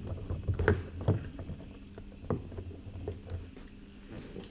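Torx screwdriver turning a screw out of a car door's plastic trim panel, with rubbing handling noise and a few sharp plastic clicks.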